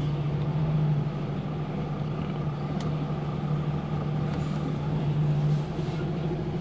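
Lorry diesel engine ticking over at low revs, heard from inside the cab as a steady low hum over a rumble, easing a little about five and a half seconds in.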